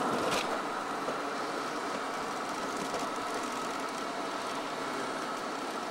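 Steady road and tyre noise of a car driving on a wet road, heard from inside the car, with a brief click just after the start.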